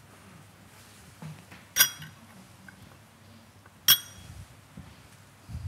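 Two sharp clinks of kitchenware, about two seconds apart, each ringing briefly with a metallic or glassy tone.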